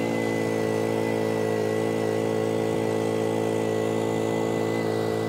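Small portable inverter generator's engine running at a steady, even speed just after being pull-started.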